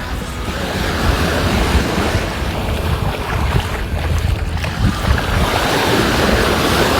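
Sea waves washing onto a sandy beach, with wind buffeting the microphone in a gusty low rumble.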